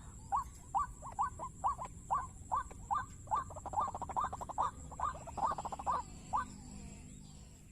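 Waterhen calling: a rapid series of short, repeated rising notes, about two to three a second, that stops about six seconds in.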